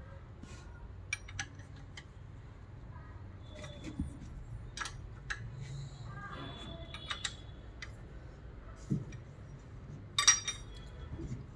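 Scattered light metallic clicks and clinks of a spanner and bolts on engine parts as the bolts are tightened by hand. One louder, ringing metal clink comes about ten seconds in.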